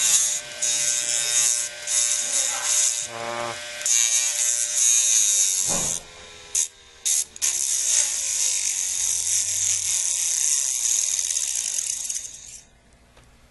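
Pencil tip being ground on a sandpaper disc stuck to the spinning platter of an opened hard drive: a loud hissing scrape over the hum of the drive's spindle motor. Around the middle the scraping breaks off a few times and the motor's hum sinks in pitch. The scraping stops near the end.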